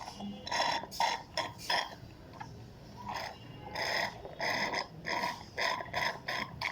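A person panting and gasping in short, sharp breaths, a few at first and then in a quick run near the end, reacting to the burn of an extremely hot chili chip.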